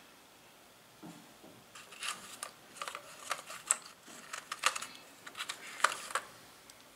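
Miniature porcelain tea set pieces clicking and tapping as fingers handle them and lift them out of their fitted tray: a run of light, irregular clicks from about two seconds in, stopping near the end.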